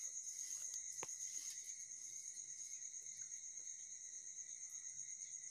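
Faint, steady chirping of crickets, a continuous high pulsing trill, with one sharp click about a second in.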